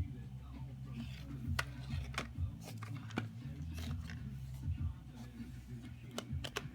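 A CD case and its packaging being handled and opened: scattered sharp plastic clicks and short rustles, with a cluster of clicks near the end, over a steady low hum.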